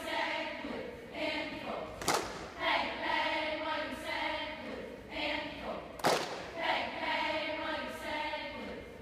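A group of girls chanting a cheer in unison, the phrase repeating about every four seconds. There is a sharp hit, like a clap or stomp, twice: about two seconds in and about six seconds in.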